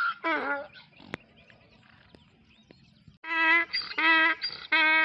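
Donkey braying. A bray falls away in the first second, then after a pause of about two and a half seconds broken by a single click, a new bray starts with quick alternating high and low hee-haw notes, about three notes every two seconds.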